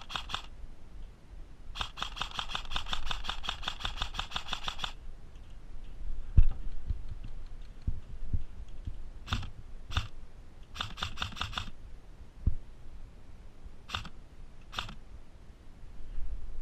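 Airsoft gun firing: a fast full-auto burst of about three seconds, then single shots, a short burst and two more single shots. A few dull low thumps fall between the shots.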